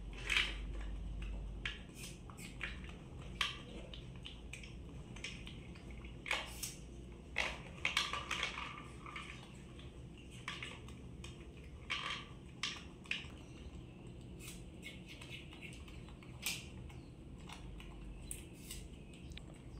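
Plastic toy fishing rods and toy fish clicking, tapping and clattering against each other and the plastic basin, in scattered, irregular knocks that come thickest about six to eight seconds in.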